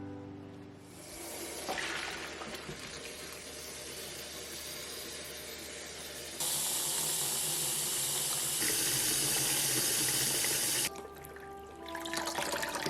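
Kitchen tap running water into a sink, with a steady hiss that grows louder and brighter when the flow hits harder about halfway through, then stops suddenly when the tap is shut off about two seconds before the end.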